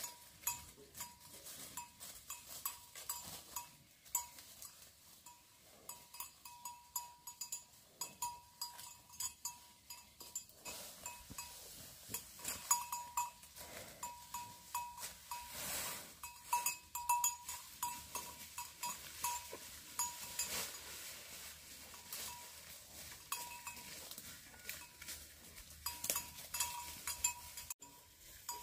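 A small bell hanging from a water buffalo's neck, tinkling irregularly as the animal moves and grazes, over crackling of dry leaves and rustling grass.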